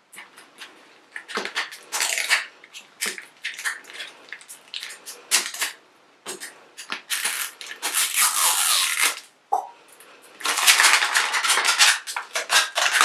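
Crinkling and crushing of thin plastic wrapping as small packets are torn open by hand, in irregular crackles and clicks with longer dense stretches of crinkling about two, seven to nine and ten to twelve seconds in.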